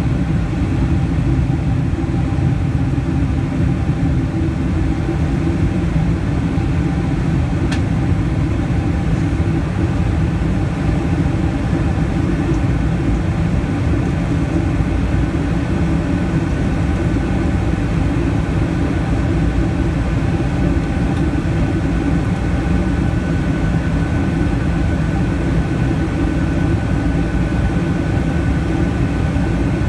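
Steady cabin noise of a Boeing 747-400 in climb, heard inside the cabin over the wing: a deep rumble of Pratt & Whitney PW4056 turbofans and airflow with a faint steady whine that grows a little stronger about halfway through. A faint click about eight seconds in.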